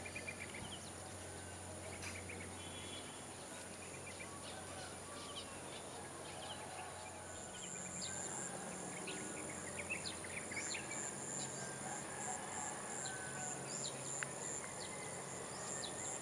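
Outdoor nature ambience: many short bird chirps and calls over a steady high-pitched insect drone. A pulsing insect trill joins about seven seconds in.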